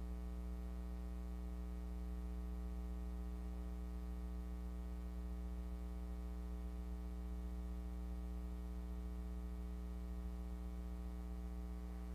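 Steady electrical mains hum, a low buzz carrying a stack of higher overtones, with no change in level.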